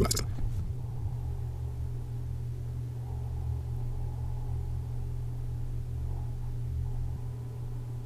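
Steady low hum and rumble of room background, with no other sound.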